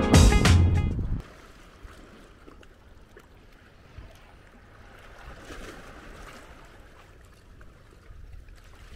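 Background music ends abruptly about a second in. After it, only faint lapping of sea water against the reef and pier is heard.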